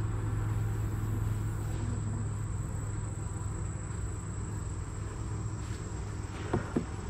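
Honeybees buzzing in an open Langstroth hive, a steady low hum with a thin high whine above it. A couple of light clicks come near the end.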